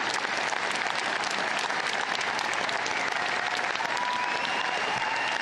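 Large crowd applauding, a long, steady wall of clapping.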